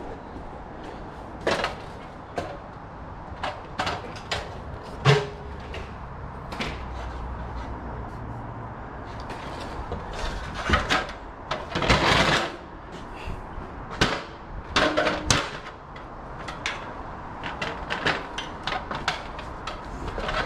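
Irregular knocks, clicks and rustles from running a thin telephone cable by gloved hands along overhead timber beams, with a longer scraping rustle about halfway through.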